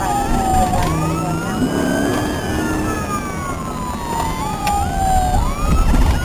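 Police car siren wailing in a slow rise and fall, about every three seconds, with a second, quicker gliding tone overlapping it, over engine and road rumble.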